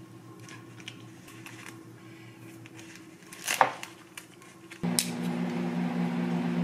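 Thin plastic film being peeled off a plastic lunchbox tray, with small rustles and clicks and one sharp, loud crinkle about three and a half seconds in. About five seconds in, a steady hum with a hiss starts and keeps going.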